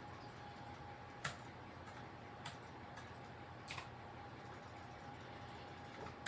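Pencil drawing on paper: four faint, irregularly spaced taps as the tip touches down, over a faint steady hum.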